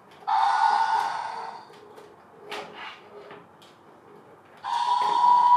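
Two long, breathy, hissing dinosaur-style roars, each about a second and a half: one just after the start and one near the end.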